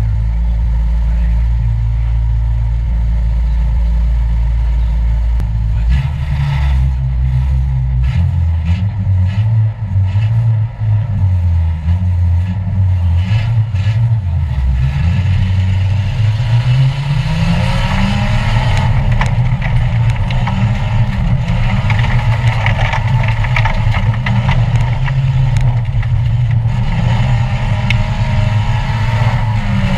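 Stock car engine heard from inside its stripped cabin. It idles steadily, then is revved unevenly for several seconds. About sixteen seconds in, it rises in pitch as the car pulls away, then runs under load, with more road noise and rattle over it.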